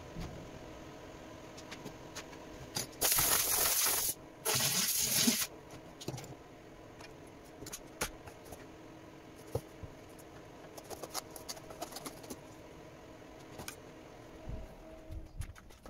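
Welding arc on an aluminium intercooler end tank: two bursts of loud hiss, about a second each, a few seconds in, with scattered light metallic clicks and knocks.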